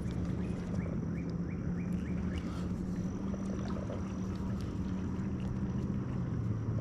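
A boat motor humming steadily with a low drone; its pitch shifts near the end. A quick run of short high chirps sounds between about one and two and a half seconds in.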